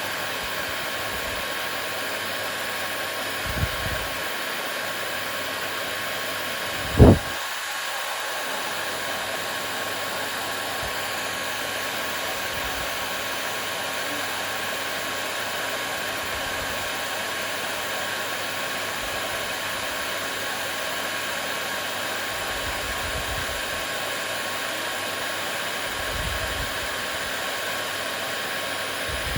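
Hair dryer running steadily, a constant rush of air with a faint steady whine. A short low thump stands out about seven seconds in, with a smaller one a few seconds earlier.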